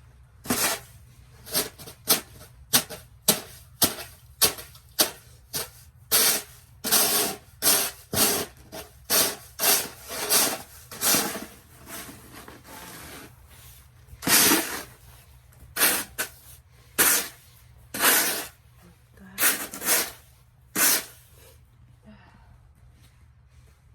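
Repeated crunching, scraping strokes on crusted snow and thick ice, about one and a half a second at first, then more irregular with some longer strokes.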